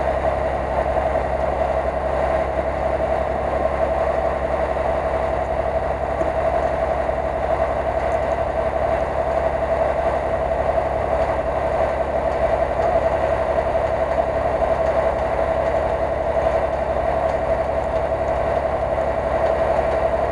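An off-road vehicle's engine idling steadily, with an even mid-pitched hum over a low rumble.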